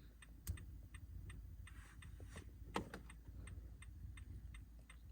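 Car hazard-light flasher ticking steadily, about three faint clicks a second, with two louder single clicks, about half a second and nearly three seconds in.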